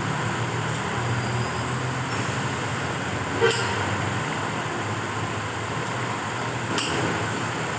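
Steady hum of road traffic and a running motor, broken by two sharp clicks, hand tools knocking on engine parts during the teardown, about three and a half seconds in and near the end.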